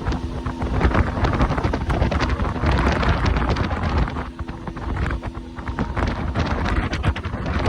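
Wind buffeting the microphone over the engine and water noise of a speedboat out on the lake, a heavy low rumble with a steady hum coming and going.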